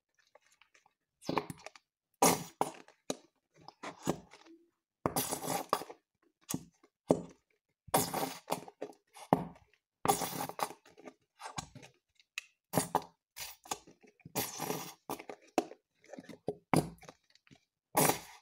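A plastic bottle of white glue squeezed over and over into a plastic tub, giving a string of short, irregular squelching bursts as glue and air are forced from the nozzle.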